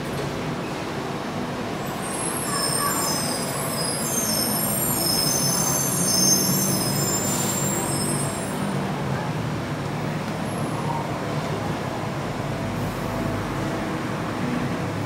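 A Bukit Panjang LRT light rail vehicle running through the station with a low, steady hum. A high-pitched, wavering squeal sets in about two seconds in and fades out a little past halfway.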